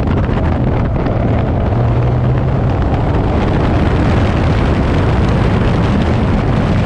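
Seven-style open-cockpit sports car driven at speed, its engine running steadily under load as heard from the open cockpit, mixed with loud wind buffeting on the microphone.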